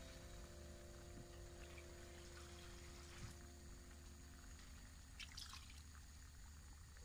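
Near silence: faint sounds of water in a cooking pot, with a brief faint splash or trickle about five seconds in as more water is poured in.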